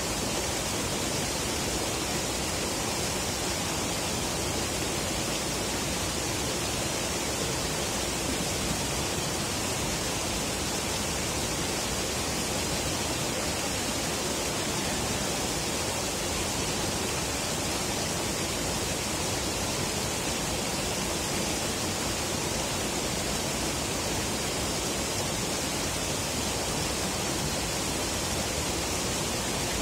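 Steady rushing of river water flowing under a bridge, an even hiss-like noise that never changes.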